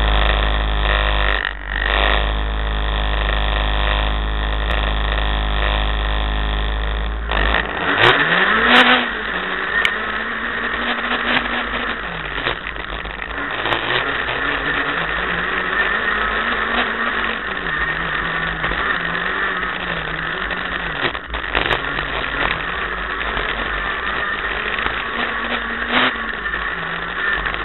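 Renault Clio Williams four-cylinder engine heard from inside the cabin. It runs at a steady pitch for about seven seconds, then the car pulls away hard. The revs climb and drop again and again through gear changes and corners, with scattered sharp clicks.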